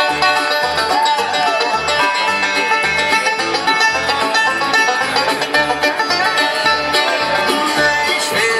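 Live bluegrass band playing an instrumental passage: a five-string banjo stands out over mandolin, acoustic guitar, fiddle and upright bass. The upright bass plays a steady beat of about two notes a second.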